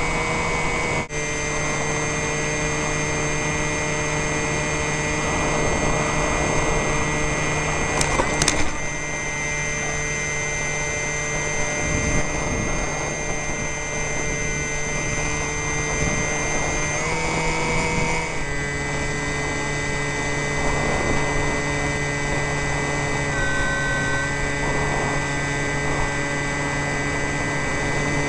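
Electric motor and propeller of a radio-controlled model plane whining steadily, heard from a camera on board, with wind rushing over the microphone. The pitch steps to a new level several times, with a brief louder sweep about eight seconds in.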